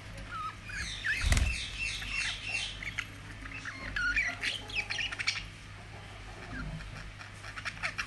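Several budgerigars chirping and warbling in quick runs of short rising and falling calls, with a thump about a second in.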